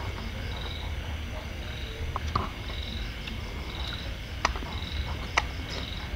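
Small animals calling: short, high-pitched pulsed trills repeating about once a second, with a few light clicks in between.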